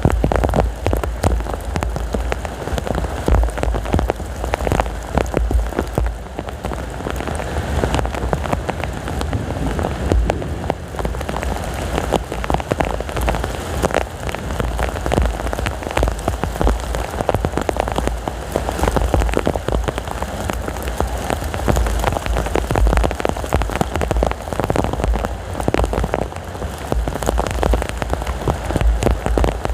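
Heavy rain pouring down steadily, a dense patter of countless drop impacts, over a constant low rumble of strong wind.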